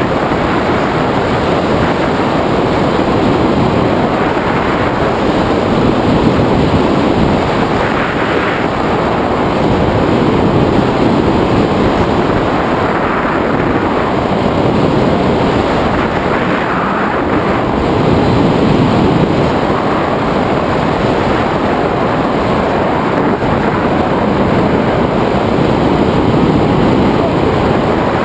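Loud, steady wind buffeting the microphone of a camera mounted on a tandem hang glider's wing in flight, swelling and easing slowly.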